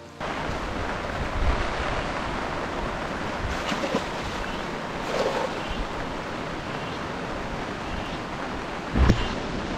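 A river running high and fast in the monsoon: a steady rush of water, with a low thump near the end.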